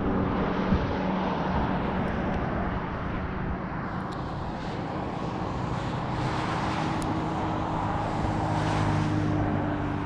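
A vehicle driving steadily: a constant engine hum with road and wind noise, and a small knock about a second in.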